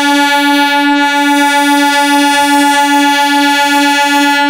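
Horn of a MEDHA three-phase EMU local train sounding one long, loud, steady blast on a single note.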